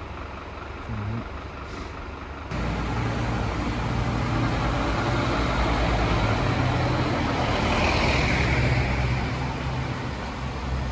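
A heavy vehicle's engine running close by: a steady low engine hum that comes in suddenly about two and a half seconds in, swelling to its loudest about eight seconds in, with a brief hiss like an air brake around then.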